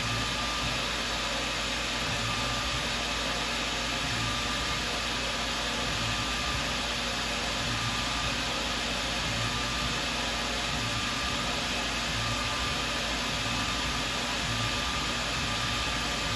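Tormach CNC mill's spindle running steadily as it mill-turns a part against a fixed tool, a constant whirring hiss with a faint high whine that comes and goes.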